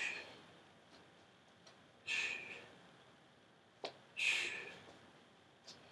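Two forceful "shh" exhalations, hissed out through the teeth about two seconds apart, the breathing of someone holding a high plank while lifting one limb at a time. A short click comes just before the second breath.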